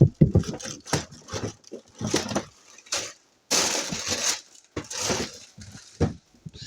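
Knife cutting cucumber on a cutting board: a quick run of irregular knocks against the board, with a few longer scraping, crunching stretches in between.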